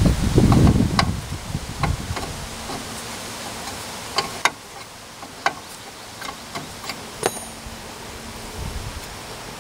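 Scattered metallic clicks and clinks of a wrench on the front brake caliper's pin bolts as they are worked loose, coming irregularly rather than in a steady ratchet rhythm, one about seven seconds in with a brief high ring. A low rumble in the first second.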